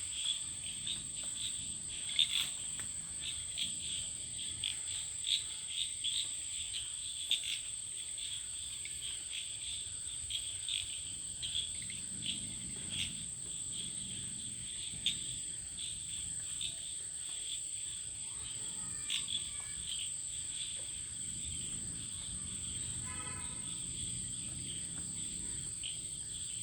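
Night insect chorus: crickets chirping in irregular short pulses over a continuous high insect drone. A brief pitched animal call sounds once near the end.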